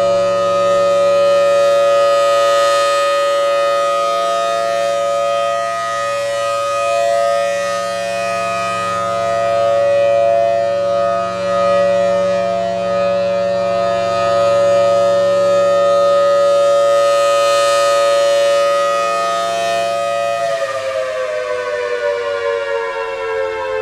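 Federal Signal Thunderbolt 1000T outdoor warning siren sounding a steady alert tone, made of several steady pitches together, swelling and fading as the rotating horn sweeps past. About twenty seconds in the steady tone ends and the pitch falls as the siren winds down at the end of its one-minute alert.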